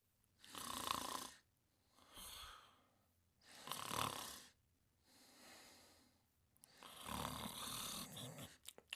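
Snoring in deep sleep: three loud snoring breaths with two softer breaths between them, in a slow, even rhythm. A few small clicks come near the end.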